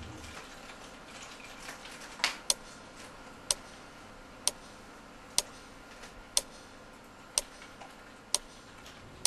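Quartz wall clock ticking about once a second, sharp single clicks starting about two seconds in over faint room tone.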